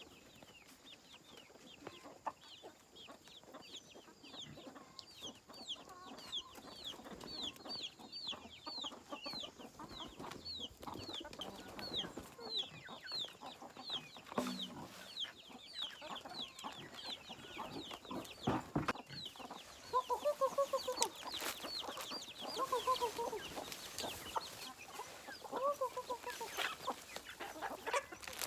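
Chickens calling: a steady stream of short, high peeps that fall in pitch, several a second, joined about two thirds of the way in by lower clucking calls, with a few knocks here and there.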